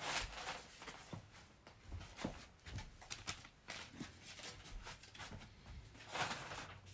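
Rustling of torn strips of old shoji paper being gathered and handled, mixed with soft footsteps and shuffling on tatami mats. There is a louder rustle right at the start and another about six seconds in.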